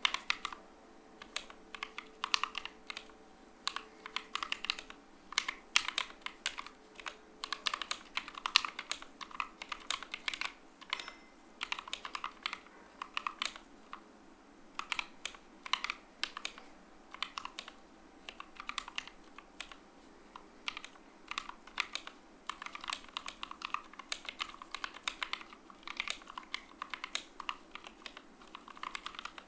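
Typing on a Corne V3 split mechanical keyboard with Obsidian Pro V1 switches in a wood plate and OTC 9009 keycaps: irregular runs of key clacks with brief pauses between bursts.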